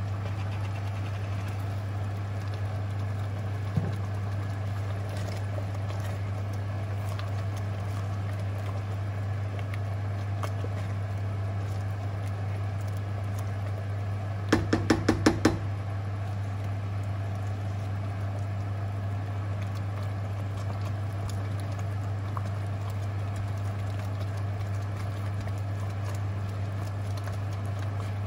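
Wooden spoon stirring a thick stew in a stainless steel pot, with a quick run of about six knocks about halfway through, the loudest sounds, over a steady low hum.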